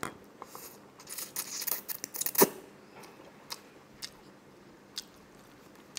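Close-miked eating sounds of a person taking in and chewing a mouthful of spicy noodles: a run of wet slurping and smacking noises from about one to two and a half seconds in, then a few single mouth clicks as the chewing goes on.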